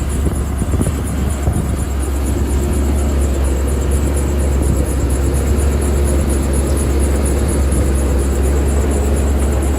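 Diesel engine of heavy earth-moving machinery running steadily with a deep rumble, with a few knocks near the start.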